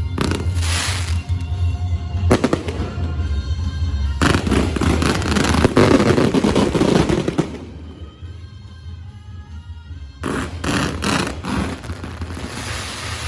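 Aerial fireworks going off in volleys of bangs and crackling, densest from about four to seven and a half seconds in, then a lull and another burst about ten seconds in.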